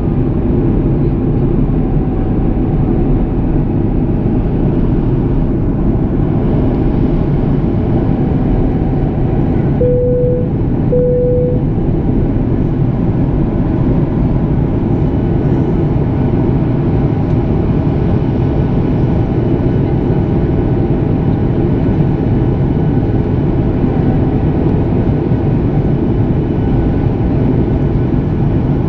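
Steady cabin roar of a Boeing 737 on approach, its CFM56 turbofans and the airflow heard inside the cabin from a window seat over the wing. About ten seconds in, two short beeps at the same pitch sound about a second apart.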